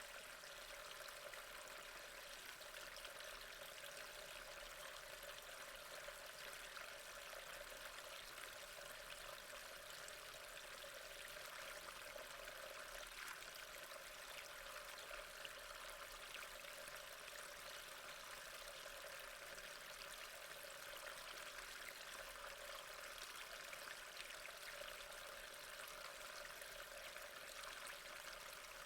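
Water running steadily into a storm drain, a constant, unchanging flow.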